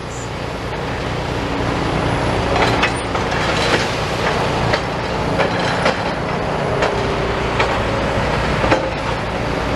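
Steady low rumble of heavy road traffic passing close by, with scattered sharp knocks and cracks.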